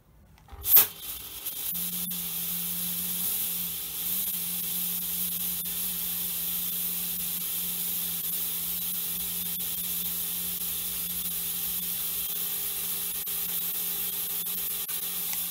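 BeamZ S700-LED fog machine running: a sharp click about a second in, then a steady hiss of fog being pushed out, with a steady low buzz underneath.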